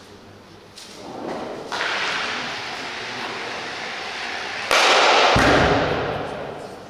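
An ice stock sliding with a long, steady gliding hiss that grows louder. About two-thirds of the way through comes a sudden sharp crack, a stock striking another stock, and the loud sliding noise then fades away.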